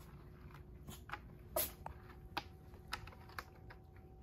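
Faint scattered clicks and rustles of cats rubbing their faces and pawing at a corrugated cardboard scratcher, the loudest about one and a half seconds in.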